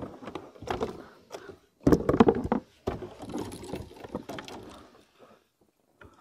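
Irregular clicks and knocks of fishing tackle and a caught traíra being handled in a sit-on-top kayak, loudest about two seconds in.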